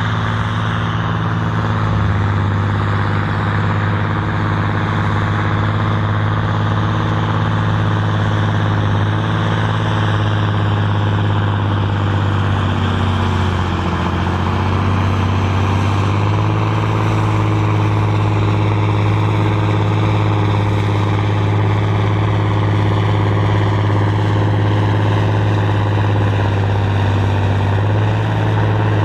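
John Deere tractor's six-cylinder diesel engine running steadily under heavy load as it drags a tractor-pulling sledge, its pitch sagging briefly about halfway through before recovering.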